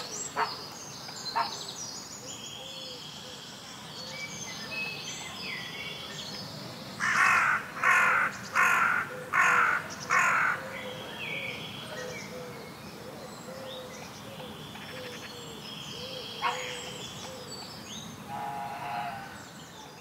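Outdoor birdsong with small birds chirping and whistling throughout. In the middle comes a run of five loud, harsh calls in quick succession, each about half a second long.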